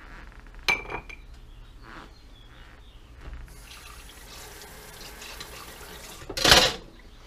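A short metallic clink with a brief ring about a second in, then water running from a kitchen tap for a few seconds, which stops with a loud knock near the end.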